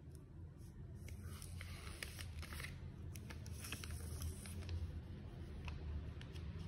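Thin clear plastic protective film being peeled off the back of a smartphone, crinkling and crackling in two spells with a few sharp clicks, over a low steady hum.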